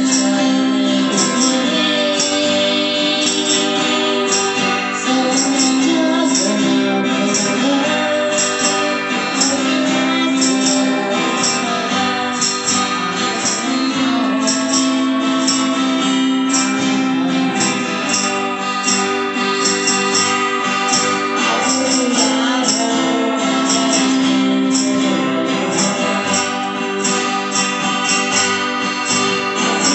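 Live acoustic music: a woman singing to guitars strummed and picked, with light percussion keeping a steady beat of about two strokes a second.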